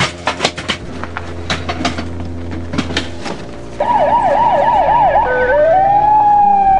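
Background music with sharp hits, then about halfway through an ambulance siren comes on loud. It yelps fast, about three sweeps a second, then switches to a slow wail that rises and holds high near the end.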